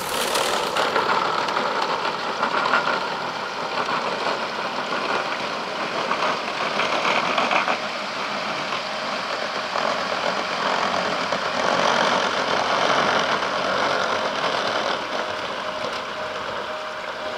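Model Tobu electric train running along its track and across a metal truss bridge: a steady mechanical rattling rumble that swells slightly and then eases off near the end.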